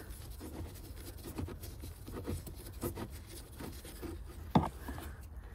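Small stubby Phillips screwdriver turning a loosened screw out of a car's glove box trim: faint scraping and light ticks of the bit in the screw, with one sharper click near the end.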